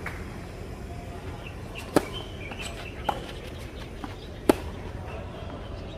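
Tennis rally: rackets strike the ball with sharp pops, one about two seconds in and the loudest at about four and a half seconds, with a softer knock in between.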